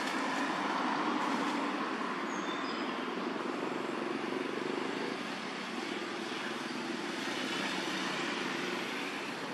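Steady rushing outdoor background noise with no single clear source, swelling slightly about a second in, with a few faint, brief high chirps about two to three seconds in.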